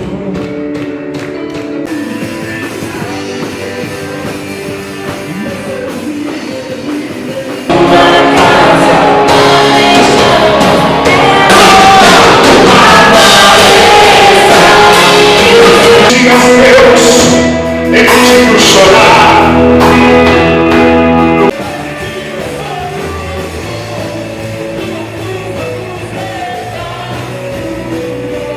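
Rock music with singing. It jumps abruptly much louder about eight seconds in and drops back just as suddenly around twenty-one seconds in.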